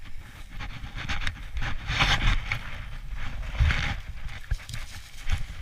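Footsteps and rustling through dry tall grass, with uneven swishes and low thuds that swell strongest about two seconds in and again near the middle.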